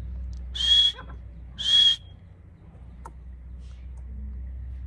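A bird giving two loud, shrill whistled calls about a second apart.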